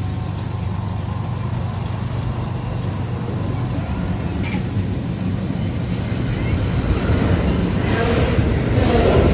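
Intermodal freight train with diesel locomotives passing: a steady low diesel engine drone with rail rumble, which swells louder in the last two seconds or so.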